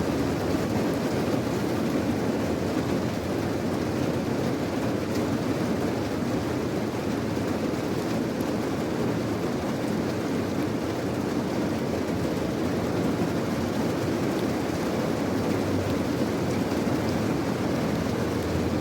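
Steady rain, an even deep rush of noise with faint scattered ticks of drops, unchanging throughout.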